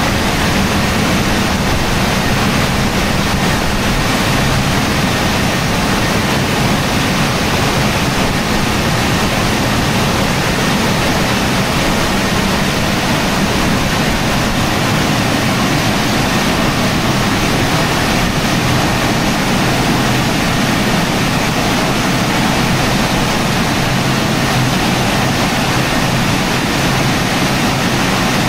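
Tammermatic T700 car wash drying blowers running: a steady, loud rush of air with a low hum underneath, at an even level throughout.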